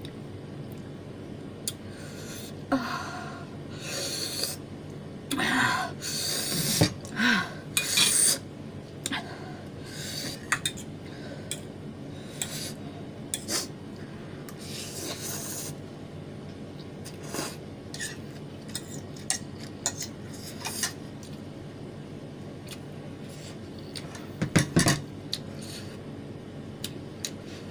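Close-up eating sounds: a fork clinking and scraping on a plate, with bursts of noodles being slurped and chewed. Most of the bursts come a few seconds in and again near the end.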